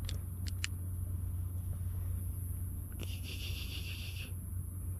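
Steady low background rumble, with a few sharp clicks in the first second and a rough rustling hiss lasting about a second later on, as a small catch on a fishing line is handled.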